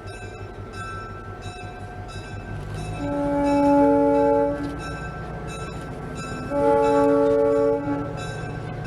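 Locomotive air horn on US Army locomotive USAX 2008 sounding two long blasts of a multi-note chord, the second a little shorter than the first, over the steady low running of the locomotive.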